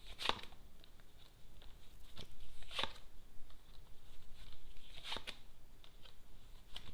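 Lenormand cards being shuffled and handled, with a faint rustle and four or five short sharp snaps of the cards spread a second or two apart.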